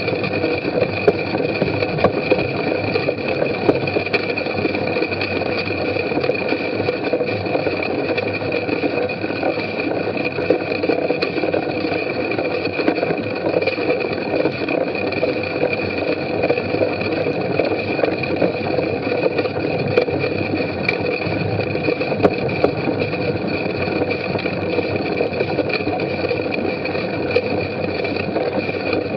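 A bicycle ridden over bumpy, muddy grass, heard through a camera mounted on the bike: steady tyre and rolling noise with continual rattling and many small knocks as the bike and mount shake over the rough ground.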